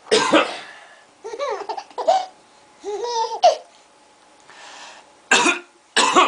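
A man coughs deliberately, once at the start and twice more near the end. Between the coughs a baby laughs in short, high bursts, amused by the coughing.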